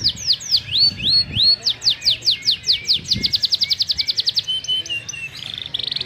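Domestic canary singing continuously. It repeats down-slurred whistled notes, about three a second, which speed up into a fast trill about halfway through. A few lower notes follow, then a rapid buzzing roll near the end.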